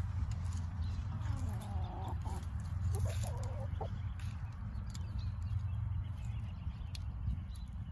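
Domestic hens clucking a few times, in two short clusters around two and three to four seconds in, over a steady low rumble.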